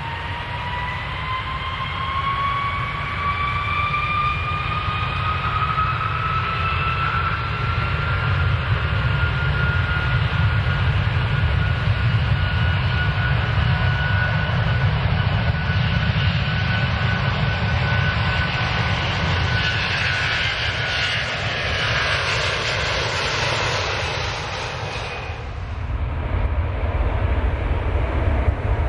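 Airliner engines powering up for takeoff: a whine that rises in pitch for about ten seconds and then holds, over a heavy low rumble. Near the end the whine drops away suddenly, leaving the low rumble.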